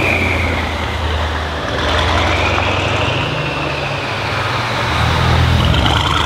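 Mercedes S63 AMG twin-turbo V8 with an aftermarket HMS exhaust, running at low speed with a deep, loud exhaust rumble that swells a couple of times.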